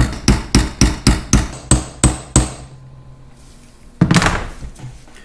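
Ball-peen hammer tapping a steel retaining pin into the drive gear on a tractor distributor shaft held in a vise: about ten quick metallic taps, roughly four a second, the last few ringing. A single louder knock follows about four seconds in.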